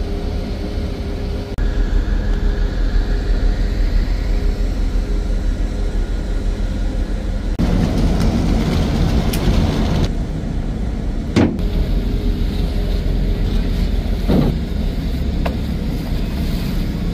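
Small mooring boat's engine running steadily, with a sharp knock about eleven seconds in.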